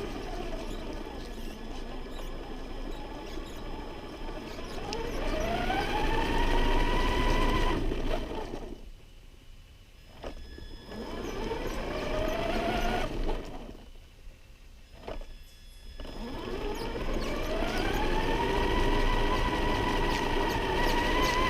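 An RC monster truck's motor whines as it drives, rising in pitch as it speeds up and falling as the throttle eases. The whine drops away twice for a second or two about nine and fourteen seconds in. Near the end it holds a steady high whine over a rough haze of tyre and ground noise.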